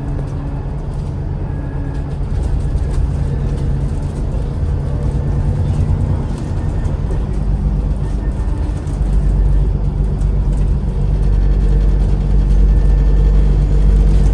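Alexander Dennis Enviro400 MMC double-decker bus, its engine and ZF automatic gearbox running steadily as heard from on board. About nine seconds in the drone grows louder and deeper as the bus pulls harder.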